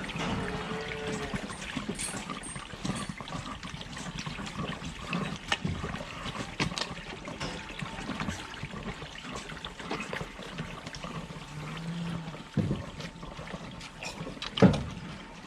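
Water splashing and trickling, with scattered knocks and clatter throughout and one loud knock near the end.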